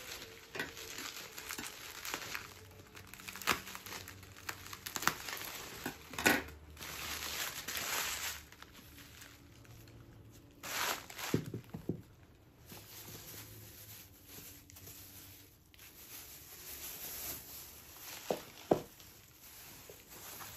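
Plastic bubble wrap crinkling and rustling as it is pulled off and handled, in irregular bursts with small crackles, broken by a few sharp knocks.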